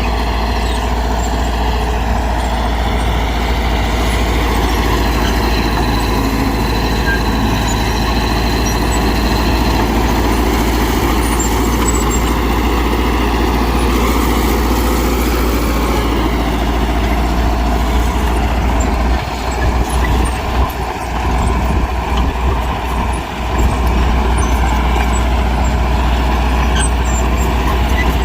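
Mitsubishi BD2G bulldozer's diesel engine running steadily as the machine works, with a brief uneven dip in loudness about two-thirds of the way in.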